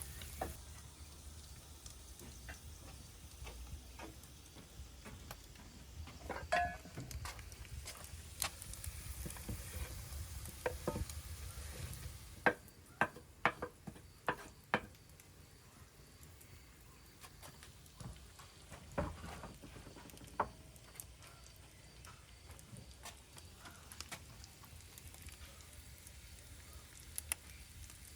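Faint cooking sounds: a low sizzle as vegetables fry, with scattered light clicks and taps of a utensil stirring. The sizzle thins out about halfway through, leaving the taps.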